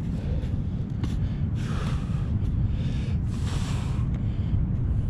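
A perforated stainless steel sand scoop digging into beach sand, scraping and hissing in a few short bursts through the middle, over a steady rumble of wind on the microphone.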